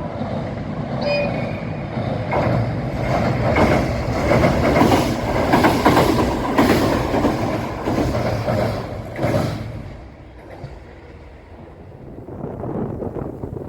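A JR Suigun Line diesel train passing, its wheels clacking over the rail joints. It builds from the start, is loudest in the middle and fades after about ten seconds.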